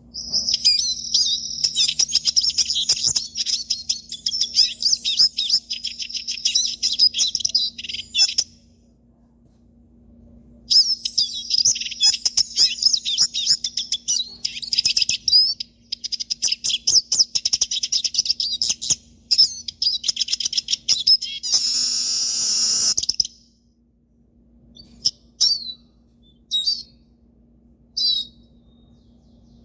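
Hooded siskin (Brazilian pintassilgo) singing: two long runs of rapid, high twittering song with a pause between them, then a few short single notes near the end. A faint steady hum runs underneath.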